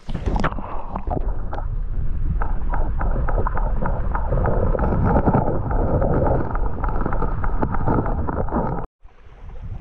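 Running river water rushing close to the microphone, with wind rumbling on the microphone; the sound cuts out abruptly near the end.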